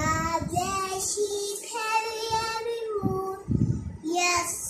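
Young girl singing a children's rhyme, with a long held note in the middle.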